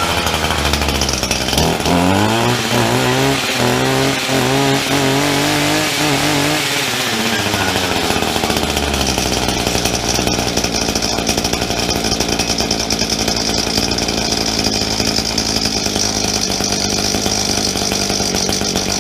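Echo SRM-230 brush cutter's two-stroke engine running on a newly fitted replacement carburetor. It is revved up and down several times in the first seven seconds, then runs at a steady speed.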